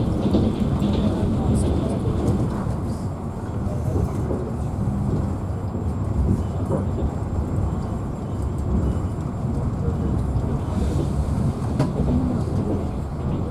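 Steady running noise of a moving passenger train car heard from inside the coach: a low rumble of the wheels on the rails.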